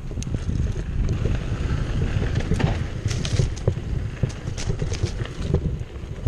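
Mountain bike (a 2015 Cannondale Jekyll 4) riding fast down dirt singletrack. Wind rumbles on a chest-mounted GoPro Hero Session's microphone, with frequent sharp clicks and rattles from the bike over the rough trail.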